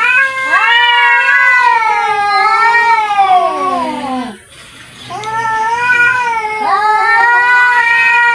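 Domestic cats caterwauling in an aggressive standoff: long, wavering yowls. The first one falls away about four seconds in, and another rises about a second later.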